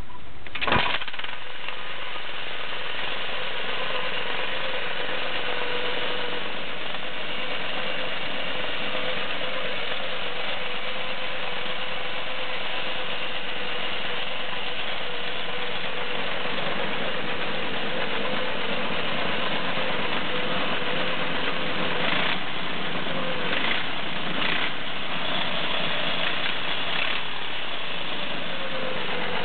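Small go-kart engine running steadily at an even speed, with a sharp click about a second in.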